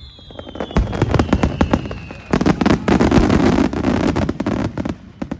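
Fireworks finale: a rapid run of aerial shell bursts and crackles, with a whistling tone gliding down in pitch over the first couple of seconds. About two seconds in it becomes a dense, continuous crackle, then thins out near the end.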